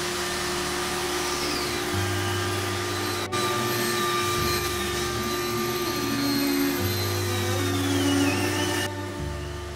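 Corded angle grinder with a sanding pad running against a plywood surface: a steady motor whine over a harsh sanding hiss, the pitch dipping now and then as the disc is pressed into the wood. Background music with a slow bass line plays underneath.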